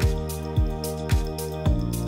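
Background music with a steady beat: a pop track with a deep kick drum about twice a second under sustained chords.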